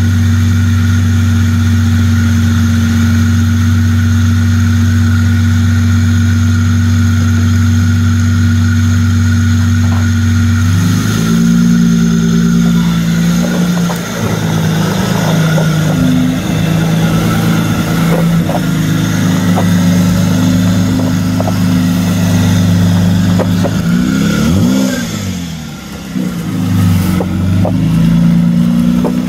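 Toyota Supra MKIV's 2JZ inline-six with a straight-pipe exhaust, loud and steady at idle for about ten seconds. Its note then shifts and wavers as the car gets under way, with a quick rev up and down near the end as it pulls out onto the street.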